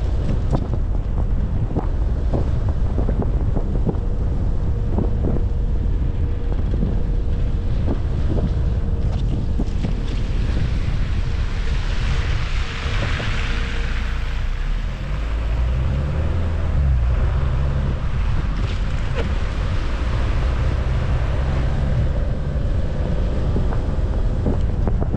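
Wind buffeting the microphone on a car driving over snow-covered streets: a steady low rumble with tyre and road noise. About halfway through, a hiss swells and fades.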